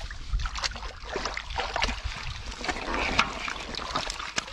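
Live catfish thrashing in a metal basin of shallow muddy water: continuous wet splashing and slapping, with many short sharp splashes, busiest about three seconds in.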